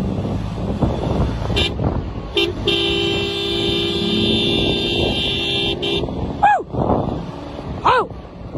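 A 4x4 driving over desert sand, its engine and tyres giving a steady rumble. About two and a half seconds in, a car horn sounds in one steady blast lasting about three and a half seconds. Near the end come two short cries that rise and fall in pitch.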